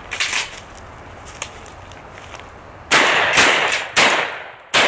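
Competition shotgun firing four loud shots in quick succession, about half a second apart, at clay pigeons thrown into the air, after a lighter crack near the start.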